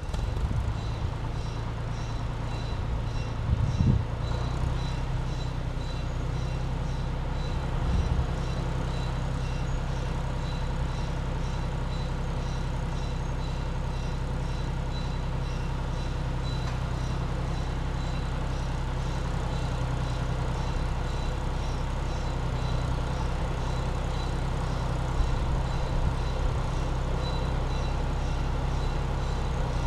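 A farm tractor's diesel engine running steadily with a low drone, with a couple of short knocks about four and eight seconds in.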